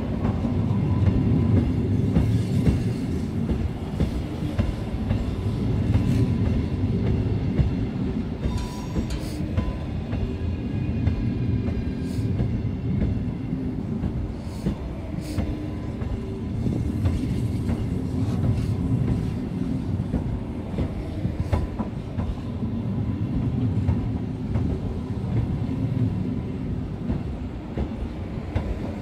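An ES2G Lastochka electric multiple unit pulling slowly out past the platform: a steady low rumble of the running train, with wheels clacking over rail joints now and then.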